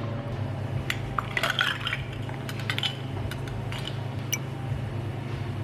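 Dishes and metal cutlery clinking and knocking as they are handled, with one bright ringing clink near the end, over a steady low machine hum.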